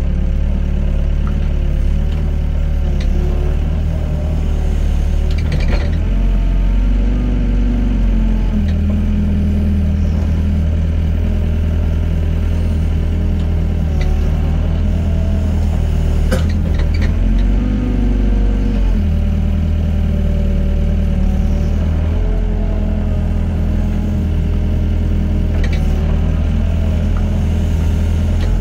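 Doosan DX55 mini excavator's diesel engine running under hydraulic load while it digs and loads sand, its pitch dipping and rising as the arm and bucket work. A few short knocks stand out from it.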